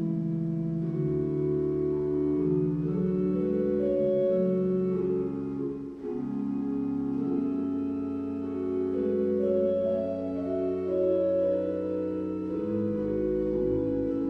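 Organ music: slow held chords that change every second or two over a sustained low bass note.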